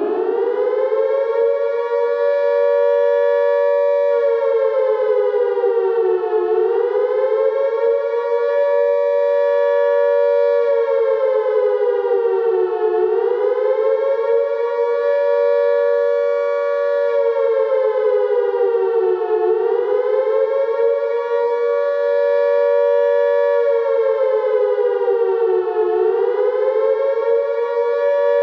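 Air raid siren sounding a sustained two-tone wail, two close pitches held together. About every six and a half seconds the pitch sags briefly and climbs back up.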